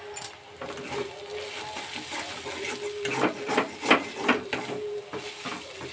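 A metal spatula stirring and scraping frying onions, cabbage and spice powder around a kadai, in short repeated strokes that come about three a second from around the middle, over a faint steady hum.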